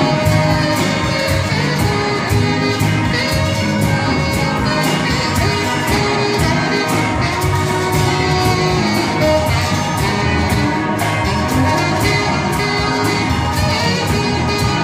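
Live band playing with horns and drum kit, a steady beat throughout.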